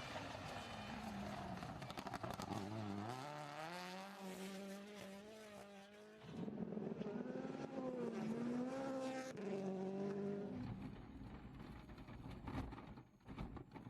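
WRC rally car engine revving hard, its pitch climbing and dropping several times through gear changes, with scattered sharp crackles.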